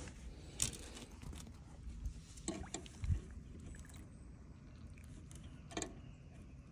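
Water splashing and sloshing as a largemouth bass is held by the lip in the water and released, with a few short splashes and knocks.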